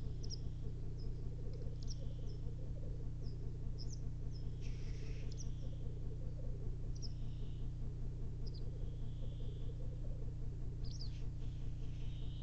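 Male black grouse lekking: a continuous low, wavering bubbling song, with short high chirps scattered through it and a hissing call about five seconds in. A steady low hum lies underneath.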